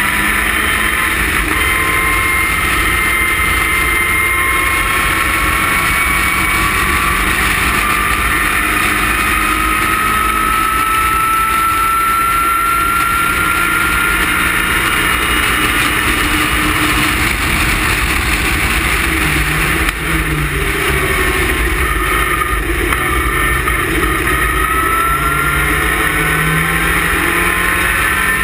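In-car sound of a Westfield sports car at racing speed: the engine running hard at high revs, its pitch climbing slowly, with a brief lift about two-thirds of the way through, over a constant wind rumble in the open cockpit.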